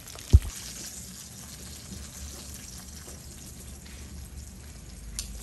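Meat for tacos sizzling as it cooks: a steady hiss, with one sharp low thump near the start.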